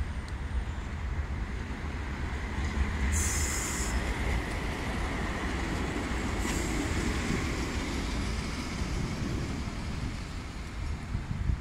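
Tram passing on street track over city traffic: a steady low rumble with a faint high squeal, and a short sharp hiss about three seconds in.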